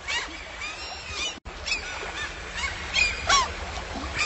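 Several birds calling in short chirping glides over a steady wash of background noise. The sound drops out for an instant about a second and a half in.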